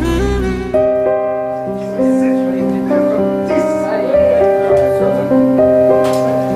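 Slow background music: sustained notes held and changing about once a second.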